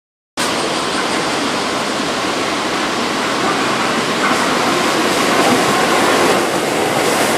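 Keihan 7200-series electric commuter train running in past the platform: a loud, steady rush of wheels on rail and running gear, with a faint whine on top. The sound cuts in abruptly just after the start.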